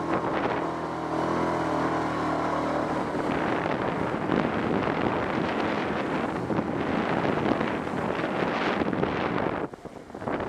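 Linhai ATV engine running while the quad ploughs through shallow water, its wheels throwing up spray. About three seconds in the rush of splashing water takes over from the engine note, and near the end the noise drops off sharply as it leaves the water.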